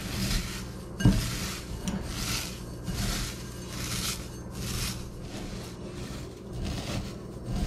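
Dry vermicelli being crushed and broken up by hand in a glass bowl: a run of crackling, rustling crunches, repeated about once or twice a second, with one sharp knock about a second in.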